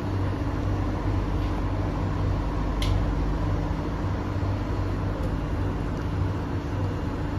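Steady hum inside a stopped C151A MRT train's cabin: air conditioning and onboard equipment running. A brief high squeak about three seconds in.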